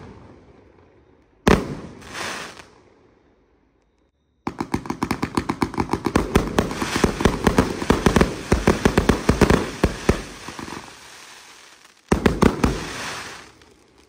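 A 144-shot fireworks compound cake with 30 mm tubes firing. A single shot bursts about a second and a half in. From about four seconds in comes a rapid volley of many shots, several a second, which fades out after about six seconds. One last shot and its burst follow near the end.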